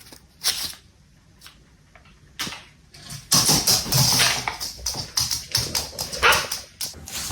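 A dog making a series of short sounds, with the loudest, longest burst about three seconds in.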